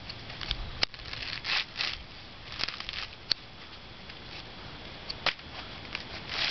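Coconut husk being pried and torn off on a pointed wooden husking stake: irregular tearing, rasping fibre sounds with a few sharp cracks.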